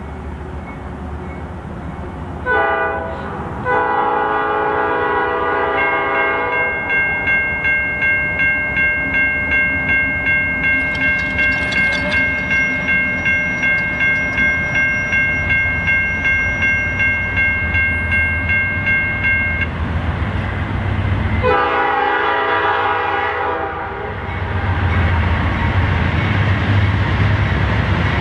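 Diesel locomotive's Nathan P5 air horn sounding for the grade crossing: a short blast about two and a half seconds in, a long one from about four to seven seconds, and another near twenty-two seconds. In between, the crossing warning bell rings about twice a second. Toward the end, the rumble of the approaching freight train grows louder.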